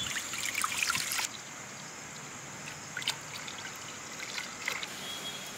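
Milk pouring in a steady stream from a steel bowl into a heavy iron kadai, splashing against the pan. It is louder for about the first second, then drops suddenly to a fainter trickle.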